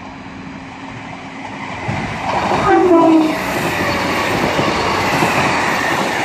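Two coupled Class 156 diesel multiple units passing through a station at speed, their running noise building up about two seconds in. Around three seconds in the driver gives a short two-tone horn, after which the steady rumble of the passing train carries on.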